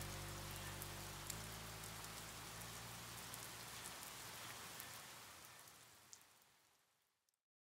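Ambient closing soundtrack fading out: a low held drone whose chord shifts about a second in, under a steady hiss with scattered soft clicks. It dies away to silence near the end.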